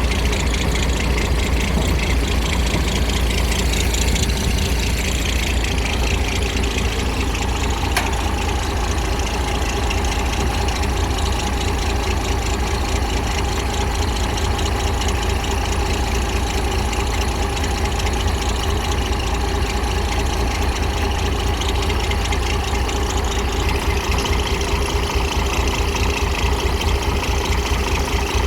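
Heavy diesel engines of an excavator and dump truck running steadily in a low rumble, with a single brief click about eight seconds in.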